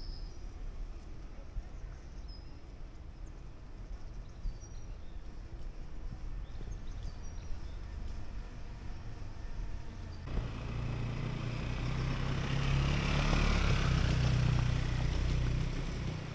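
Quiet street ambience with a few faint high chirps. About ten seconds in, a car's engine rumble and road noise swell, peak a few seconds later and then fade as it drives past.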